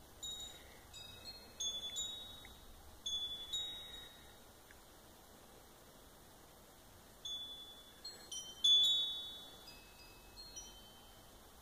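High, ringing chime notes at mixed pitches, sounding at random in two flurries with a few quiet seconds between, each note dying away quickly.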